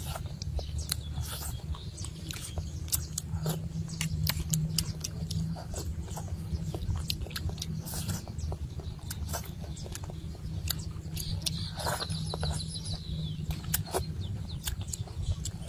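Close-up mouth sounds of a person eating fish head soup: chewing, lip-smacking and sucking meat off the fish bones, with many short wet clicks, over a steady low rumble. A brief high chirping sound comes in about twelve seconds in.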